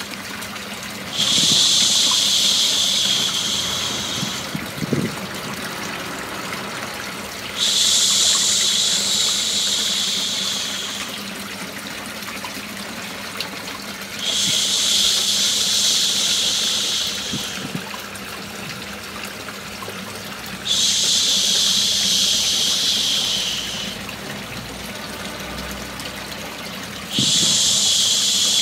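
Steady white noise of running water, with a loud shushing 'shhh' laid over it. The 'shhh' comes five times, each about three seconds long and about six and a half seconds apart. It is a looped baby-sleep soothing sound.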